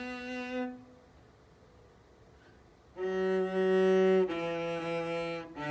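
Cello being bowed. A held note dies away about a second in, and after a pause of about two seconds come three sustained notes, each lower in pitch than the last.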